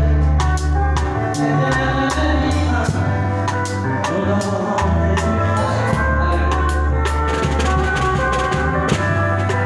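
Live band music: a Pearl drum kit with Zildjian cymbals playing a busy beat of kick, snare and cymbal hits, under held electric bass notes and guitar.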